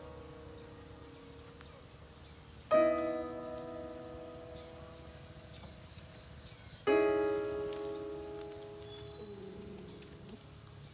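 Slow solo piano music: a soft chord struck about every four seconds and left to ring down. A steady high insect chorus runs underneath.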